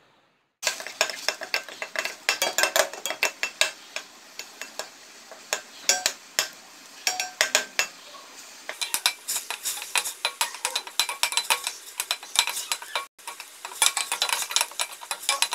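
Metal spoon stirring ground onion paste in a stainless steel kadai, with rapid scraping and clinking against the pan as the paste is sautéed in oil. It starts about half a second in, with a brief break near the end.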